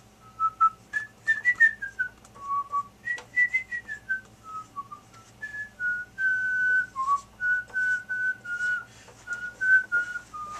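A man whistling an unhurried tune, one clear note at a time, sliding between higher and lower notes, with short squeaks of a dry-erase marker on a whiteboard between the notes.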